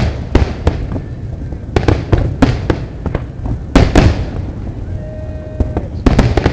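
Fireworks display: a rapid, irregular run of bursts, each a sharp bang trailing off into a rumble, several a second. A brief steady tone sounds about five seconds in.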